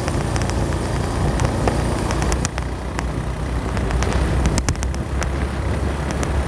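Honda Magna 50 moped on the move: its small single-cylinder engine running under a steady rush of wind over the microphone, with a few sharp clicks around the middle.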